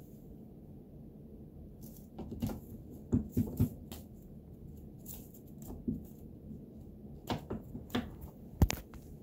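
A cat's claws scratching and catching on the sisal-rope posts and carpeted platforms of a cat tree as it climbs: an irregular run of scratches and knocks starting about two seconds in.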